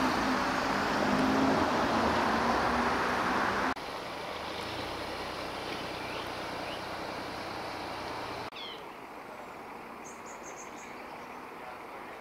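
Fire engine running steadily with a rushing noise, the sound changing abruptly twice where shots are cut together. Birds chirp faintly in the last, quieter part.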